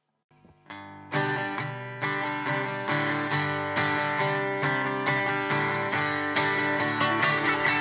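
Acoustic guitar starting a country song: a few quiet picked notes, then strummed chords about a second in, in a steady rhythm of about two strokes a second.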